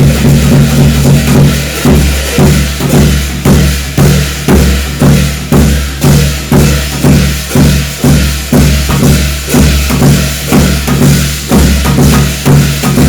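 Loud percussion-driven music: a steady beat of about two strikes a second over a sustained low drone.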